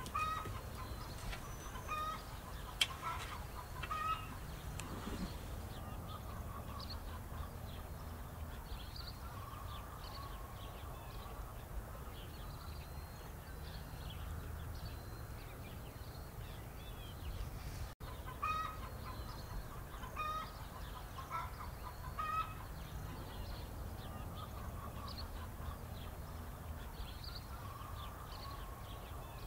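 Chickens clucking in short calls, on and off, over a steady low background rumble.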